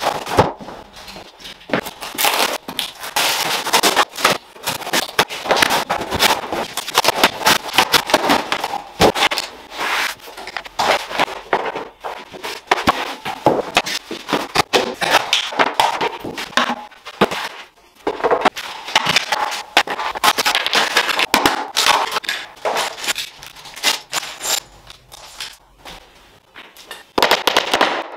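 IKEA flat-pack furniture panels being unpacked and handled: irregular knocks and scrapes of particleboard boards being set down and shifted on cardboard, with cardboard rustling. Near the end comes a quick run of sharp hammer taps as wooden dowels are driven into a panel.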